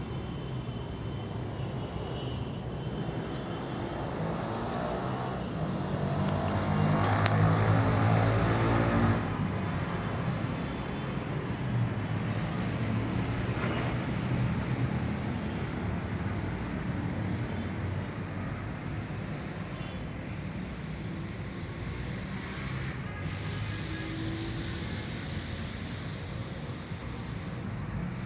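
Steady engine or traffic noise, with a louder passing sound about six to nine seconds in that then dies back down.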